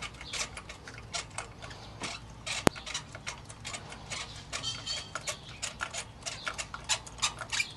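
Irregular light metallic clicking and ticking, several clicks a second, from a spark plug socket, extensions and ratchet as a new spark plug is threaded in by hand. One sharper click comes about two and a half seconds in.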